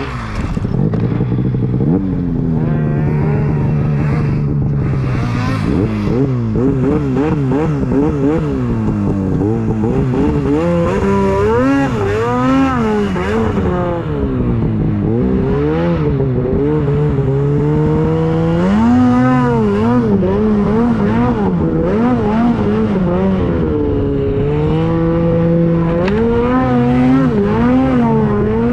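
Two-stroke snowmobile engine running under varying throttle, its revs repeatedly rising and falling with short spells held level, as when riding through deep snow.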